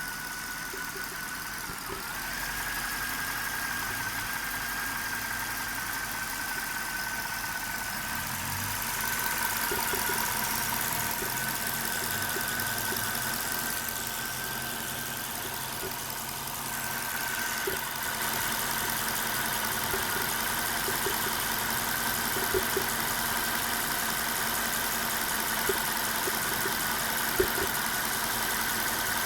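Mercedes-Benz M273 V8 idling with irregular short pops from the intake and throttle-body side, heard against a steady high whine. The pops and idle stumble are the signs of random misfires, which the owner later traced mainly to cylinder 8 and clogged fuel injectors.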